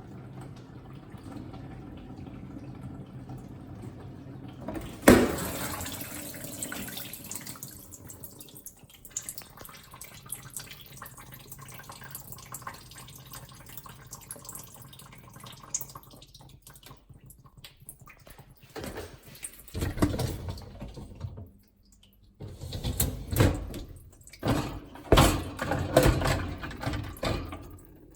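AEG dishwasher on its prewash: a low pump hum, then about five seconds in water suddenly starts spraying and splashing inside. Near the end the spray comes in uneven surges, with a brief pause about 22 seconds in.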